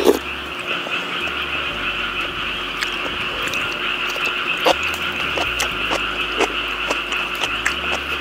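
A steady chorus of many frogs calling together, unbroken throughout, with scattered short clicks and taps of eating over it.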